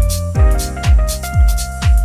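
Background music with a steady beat: a low kick drum about twice a second, cymbal strokes and held keyboard notes.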